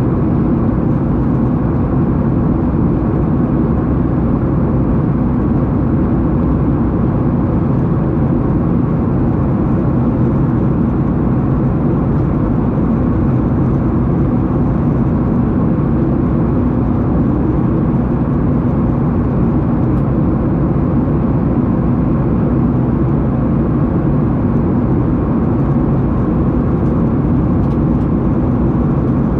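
Steady, loud drone inside a jet airliner's cabin with the engines running, mostly low in pitch and unchanging throughout.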